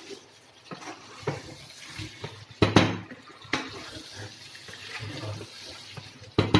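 A wooden spatula stirs and scrapes chicken pieces and tomato masala around a nonstick frying pan, knocking against the pan several times, loudest near the middle. Under it the wet masala sizzles as the tomatoes fry.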